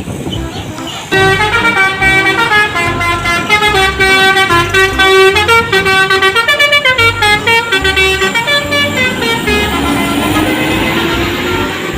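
Multi-tone bus 'telolet' horn blaring a fast melody of quick stepped notes, starting about a second in; near the end a single tone slides slowly upward.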